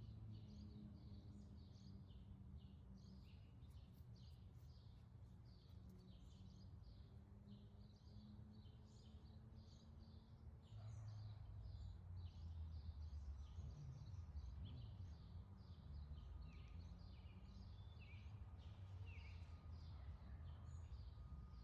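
Faint birdsong, with many small birds chirping in short, rapid calls over a low background rumble that gets louder about halfway through.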